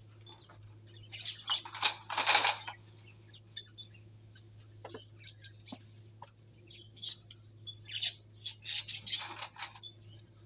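Small aviary birds chirping in short, scattered calls, with denser bursts about a second in and again near the end, over a faint steady low hum.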